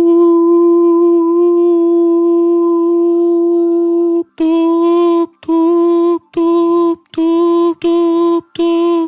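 A man's voice imitating the tone of a dropped phone call by humming: one long steady tone of about four seconds, then the same pitch cut into a run of short beeps, a little more than one a second.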